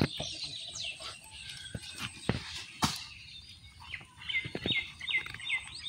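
Scattered knocks and taps as small fish are shaken out of pot-shaped fish traps into a bowl. Near the end a bird calls in a quick series of about five short chirps.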